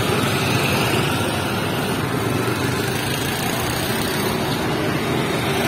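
Street traffic: the small engines of passing three-wheeled auto-rickshaws and motorbikes running, a steady mixed noise with no single event standing out.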